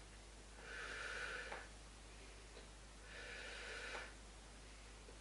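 A woman's faint breathing during a side-lying leg-lift exercise: two breaths of about a second each, the first near the start and the second past the middle, each ending with a small click.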